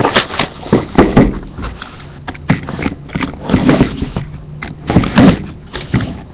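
A box of trading cards being handled and opened by hand: irregular taps, thumps and scrapes of cardboard and pack wrapper.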